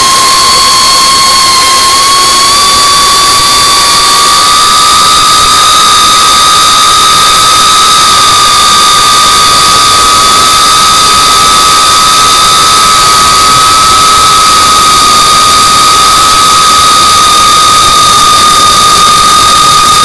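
Brushless motors and propellers of a 3.5-inch FPV quadcopter whining steadily in flight, picked up by its onboard camera, over a hiss of rushing air. The pitch climbs a little in the first few seconds, then holds.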